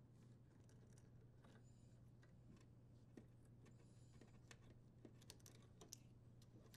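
Near silence with faint, scattered small clicks and rustles: plastic wire nuts being untwisted and copper wires pulled apart in a dishwasher's electrical junction box.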